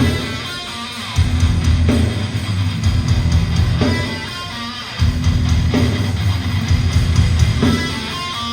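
A hardcore band playing live: distorted electric guitars and drum kit in a heavy riff. The low end cuts out twice and comes back in.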